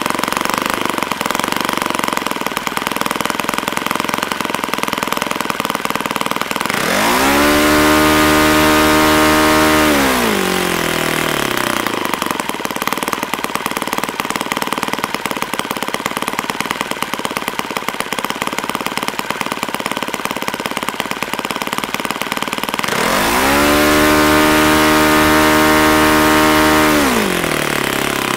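YS F-120 four-stroke glow engine swinging a 15x8 propeller, idling steadily at about 2,500 rpm, then opened up to full throttle twice, about seven seconds in and again about 23 seconds in. Each time the pitch climbs quickly, holds high and louder for about three seconds near 9,000 rpm, then falls back to idle. The transitions are clean, the sign of an engine that idles fine and transitions great.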